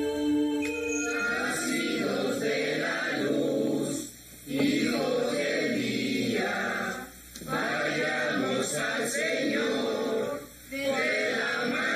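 A choir chanting a slow hymn in phrases of about three seconds, with short pauses between them. A held musical tone fades out under a second in as the singing begins.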